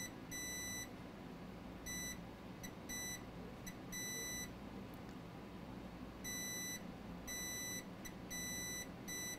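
Multimeter continuity beeper sounding in about ten short, irregular beeps of uneven length as the probe tip is touched to one capacitor after another. Each beep signals continuity to ground: the line still reads as shorted.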